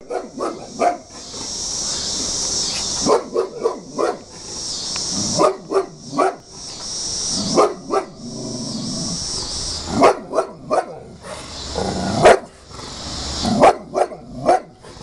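American bulldog barking repeatedly in bursts of two or three loud barks, with pauses of a second or two between them. It is agitated barking at a large portrait, which the dog treats as a threat.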